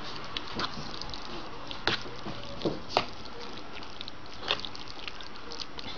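A few light clicks and knocks from kitchen utensils, scattered over a steady hiss.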